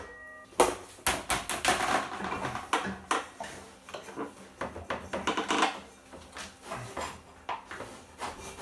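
Plastic belt guard and fan grille of an ABAC air compressor being worked loose by hand: irregular clicks, knocks and plastic rattling.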